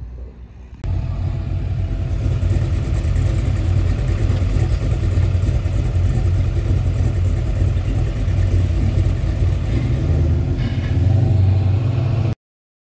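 Engine and road noise of a Mercedes 190E heard from inside its cabin while driving in traffic, a steady low drone. It starts abruptly about a second in, grows louder near the end, and cuts off suddenly.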